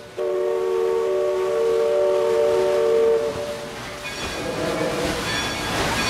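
A chime steam whistle sounds a long chord of several tones, broken for an instant right at the start, and stops about three and a half seconds in. After that there is a steady rushing noise.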